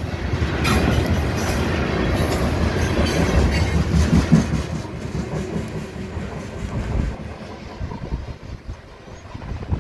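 Railroad tank cars of a freight train rolling past at close range, a steady rumble of wheels on rail that fades in the second half as the end of the train moves away.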